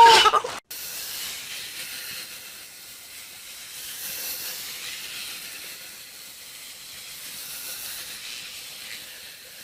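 A steady high hiss of outdoor background noise, with no distinct events. It starts at a cut about half a second in, right after a loud voice.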